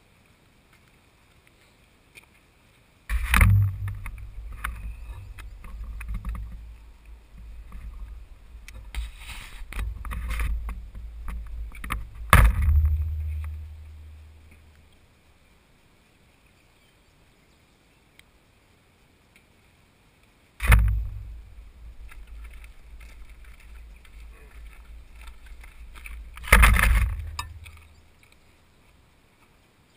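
Low, muffled rumbling against a GoPro's waterproof case, with sharp knocks. A knock about three seconds in starts a stretch of rumbling that fades out around fifteen seconds, with a loud knock near twelve seconds; another knock near twenty-one seconds starts a second stretch that ends near twenty-eight, with a loud knock just before it ends.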